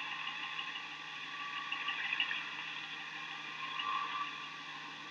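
Faint steady hum and hiss of background noise with no distinct event.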